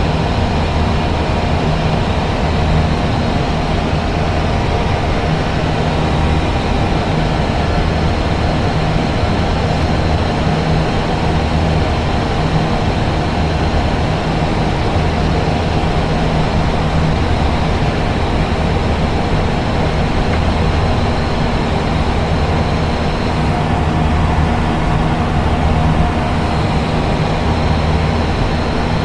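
Steady noise of an Airbus A320 in flight heard from inside the aircraft: its jet engines running with a constant rush of airflow and a few faint steady tones.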